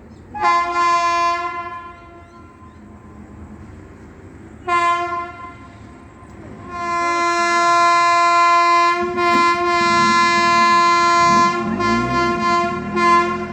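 WAP-7 electric locomotive's horn honking three times: a blast of about a second and a half, a short toot, then a long blast of about six seconds. It is a warning to a cow standing on the track.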